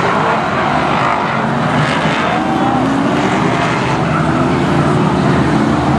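BriSCA F1 stock cars' V8 engines running hard as the cars race round the track, a loud, dense, continuous engine noise whose pitch rises and falls.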